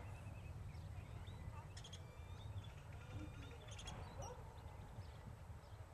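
Outdoor ambience: a steady low wind rumble on the microphone, with faint, scattered bird chirps.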